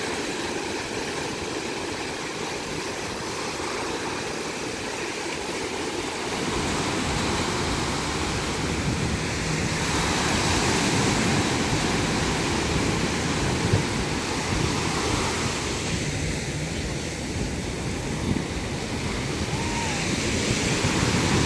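Small surf breaking and washing up a sandy beach, a steady rushing wash that swells now and then. From about six seconds in, a low rumble of wind on the microphone is added.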